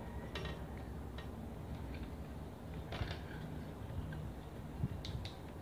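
Close-up eating sounds: chewing, with a few short, sharp crunches and clicks from crisp lettuce and rice handled by hand, over a steady low hum.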